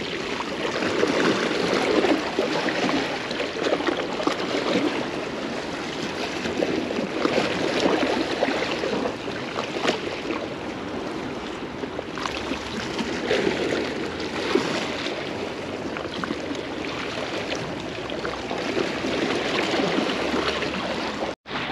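Sea water washing and lapping among shoreline rocks: an uneven rush of water noise that swells and eases. It breaks off for an instant near the end.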